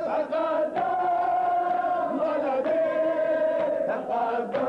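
A male noha reciter holds a long chanted note, unaccompanied. The pitch dips slightly about two seconds in and then steadies again, with men's voices chanting along.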